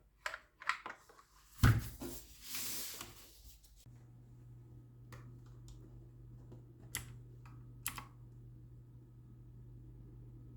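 Havit Gamenote mechanical gaming keyboard being handled: a few clicks and a heavy knock, a rustling noise, then scattered single key clicks. A low steady hum starts about four seconds in.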